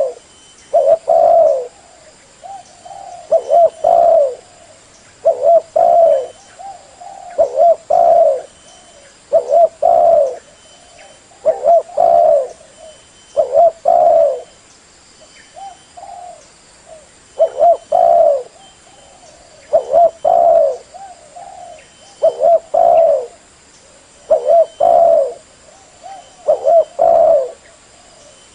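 Spotted dove (tekukur) cooing over and over, one short phrase of a few low coos about every two seconds.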